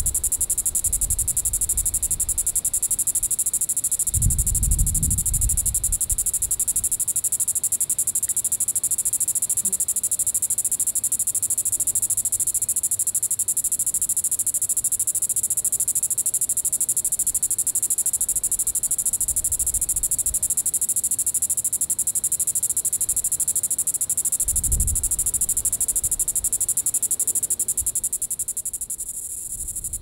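Diceroprocta vitripennis cicada calling: a continuous high-pitched buzz with a fast, even pulse. It dips briefly near the end and then resumes, with two short low rumbles underneath.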